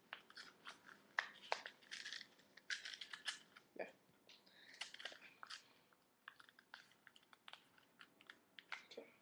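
A rolled paper tube being squeezed and folded flat by hand: irregular crinkling and crunching of paper.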